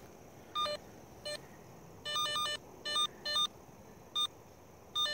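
Handheld cable locator receiver giving electronic detection beeps as it is swept over a buried cable. The beeps come at irregular intervals: some single and short, others longer and stuttering, about seven beeps in all.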